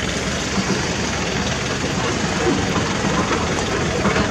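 Heavy diesel engine idling steadily, an even low running sound with no change in speed.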